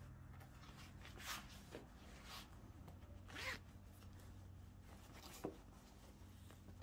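Quiet handling of a dress's zippered pocket: a few short rasps of cloth and zipper, the loudest about three and a half seconds in, and a small click a little past five seconds, over a faint steady hum.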